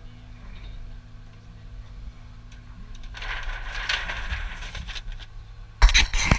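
Forwarder's diesel engine running steadily, heard from inside the cab. From about three seconds in a louder rushing noise joins it. Near the end come loud crackling knocks of a hand handling the camera.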